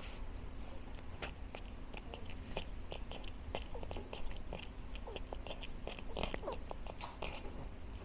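A cat eating from a bowl: quick, irregular chewing clicks, several a second.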